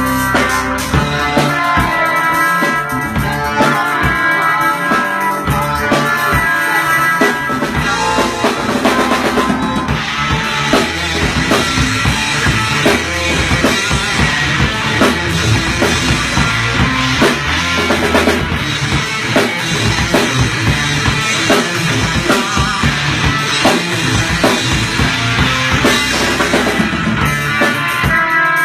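Rock-style instrumental music with a steady drum-kit beat, bass drum and guitar.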